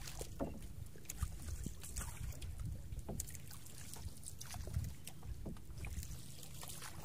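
Paddle strokes splashing in the water beside a small outrigger canoe, a few soft irregular splashes and knocks over a low rumble.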